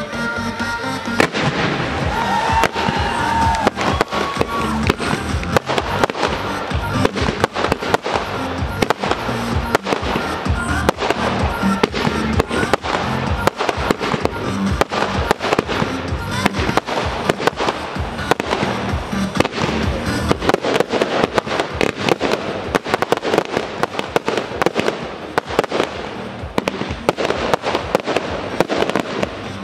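Fireworks going off in a dense barrage of crackles and bangs from aerial shells, over music.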